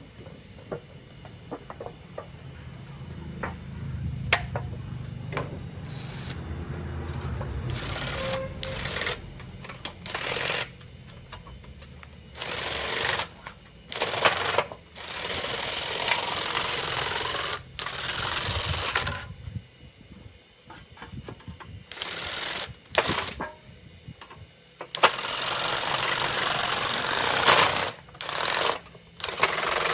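Drill-driven homemade sheet-metal shear chopping through corrugated iron in repeated bursts of one to three seconds, a rapid mechanical chatter of the reciprocating blade. Before the first burst, about seven seconds in, there is a quieter low run with a few ticks.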